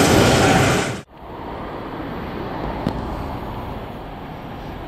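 Loud rumble of a freight train's empty container flat wagons running past on the rails, cut off abruptly about a second in. A much quieter steady low rumble follows as an EWS Class 66 diesel locomotive approaches in the distance, with one brief click.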